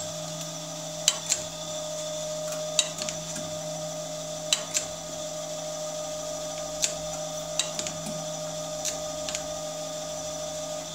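Jones & Shipman 540AP surface grinder running with its hydraulic power feeds engaged: a steady machine hum, broken every second or two by sharp clicks from the feed mechanism.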